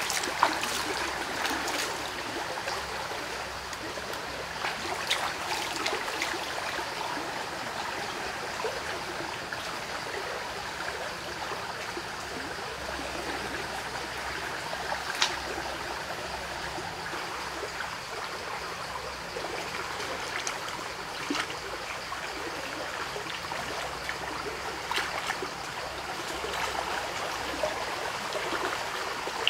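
Shallow muddy creek water running steadily over a flooded forest bank, with a few brief sharp sounds now and then.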